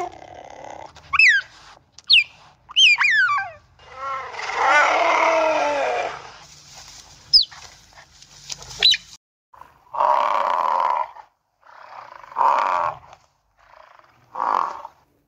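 Cheetah calling: a run of high, bird-like chirps sliding down in pitch, then a longer rasping call about four seconds in and two thin rising chirps. From about ten seconds, European bison give three short, harsh grunting calls a second or two apart.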